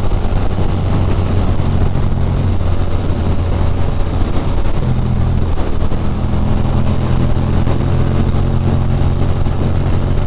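2006 Ducati Monster 620's air-cooled L-twin engine running at highway speed, with heavy wind rush over the helmet microphone. The engine note shifts about halfway through.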